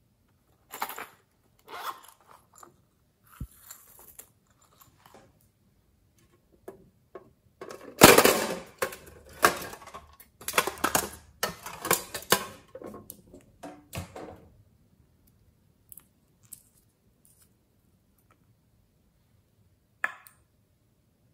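Hands handling small toy cases and a nail polish bottle: a few scattered clicks and taps, then several seconds of dense clattering and rustling in the middle, and one more click near the end.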